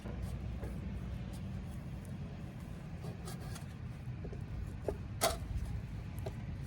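Metal and moulded parts of a large molded-case circuit breaker clicking and knocking as they are handled and fitted together, with one sharper click about five seconds in, over a steady low rumble.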